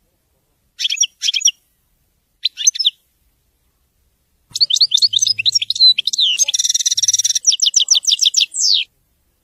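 European goldfinch singing: two short twittering bursts, then about four seconds of rapid, high song with a buzzy trill in the middle, ending on a quick falling note.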